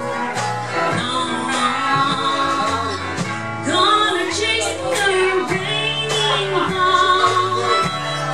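Live country-style roots band: a woman sings lead over electric guitar, steel guitar, upright bass and drums.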